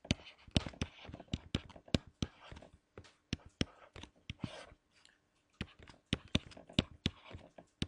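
Stylus writing on a pen tablet: irregular clicks of the pen tip tapping down, about three a second, with short patches of scratchy rubbing as strokes are drawn, and a brief pause about five seconds in.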